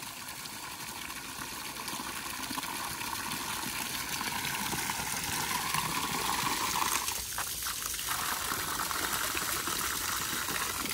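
Water gushing from a hose, a steady spray that grows gradually louder.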